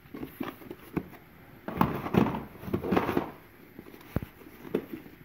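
Rustling and light clicks of packets of fly-tying feathers being handled and rummaged through in a box, louder in two stretches around the middle, with a single sharp tap near the end.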